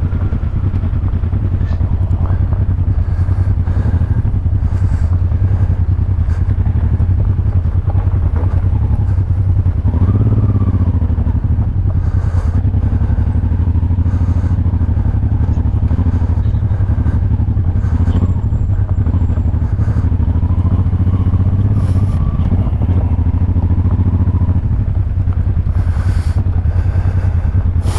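Honda Transalp 600's V-twin engine running as the motorcycle is ridden off-road, the revs rising and falling a few times, with occasional knocks.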